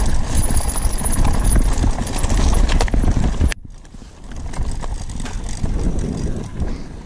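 Bicycle riding over a rough track: a heavy low rumble with many irregular rattles and clicks from the bike and tyres. It drops off abruptly about halfway through, then picks back up, quieter.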